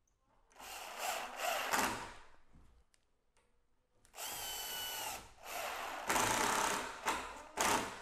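Cordless drill driving the mounting screws of a pocket door lock in four short runs, with a long pause after the first.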